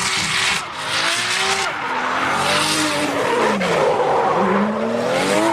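Race car sound: an engine revving, its pitch rising and falling several times, over a loud continuous rushing noise like tyres skidding.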